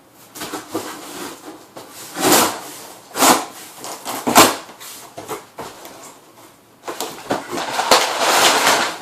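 Cardboard shipping box being opened and handled by hand: three sharp tearing or scraping noises, then denser rustling and scraping toward the end.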